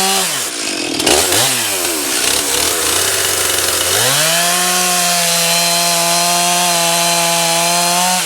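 Stihl MS311 two-stroke gas chainsaw bucking a log at full throttle. Just after the start the throttle is let off and the engine drops to a low, uneven idle. About four seconds in it revs back up and holds a steady high pitch to the end.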